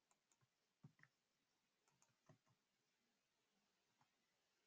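Near silence broken by a few faint clicks from operating a computer while copying and pasting in a spreadsheet.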